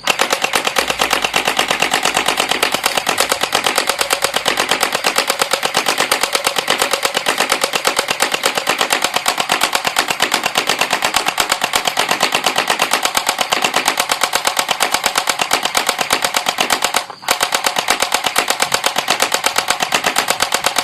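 Battery-powered P90 electric BB gun firing full-auto in a long, rapid, evenly spaced string of shots, with one brief pause about three-quarters of the way through.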